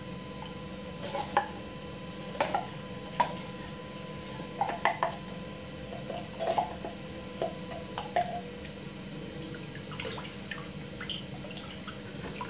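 Sweetened condensed milk being poured from a pack into a glass bowl of Guinness punch: irregular drips and light clicks over a steady background hum.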